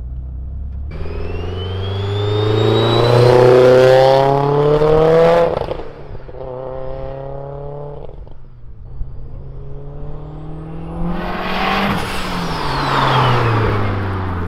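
Mitsubishi Evo X's turbocharged four-cylinder under hard acceleration, its Precision 6266 turbo with the T51R mod spooling with a loud rising whistle over the climbing engine note, cut off suddenly about five seconds in. Later the car accelerates past again, engine note and turbo whistle rising, then dropping in pitch as it goes by.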